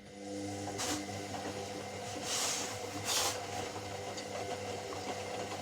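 Washing machine starting up again after a pause: its motor sets in with a steady hum that builds over the first half second, with rushing whooshes about one second, two and a half and three seconds in.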